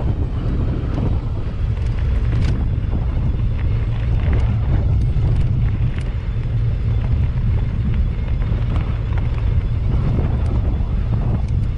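Steady low wind rumble on the microphone of a camera riding on a mountain bike's handlebars, mixed with the rumble of the bike rolling over a grassy dirt track and small clicks and rattles from the bike.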